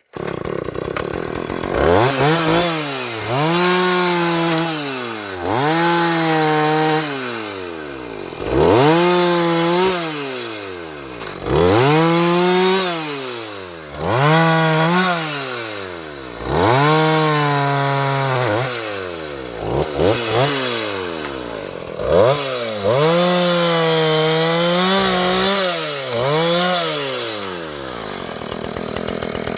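Two-stroke chainsaw revved up and down about ten times, each rise held for a moment before dropping back, as it cuts a felled tree trunk into pieces; it settles to idle near the end.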